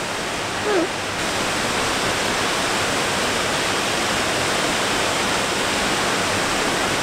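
Steady, even rush of a valley stream's flowing water, slightly stronger after about a second. A short voice sound is heard just under a second in.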